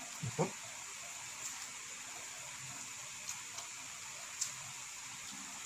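Faint eating sounds: a couple of soft mouth and food noises just after the start, then a few small clicks, over a steady background hiss.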